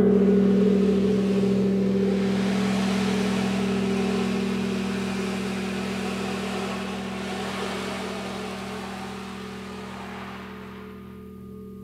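Ring of a struck gong dying away slowly: a steady low hum under a wash of higher overtones, the whole fading evenly, with the higher part dying out near the end.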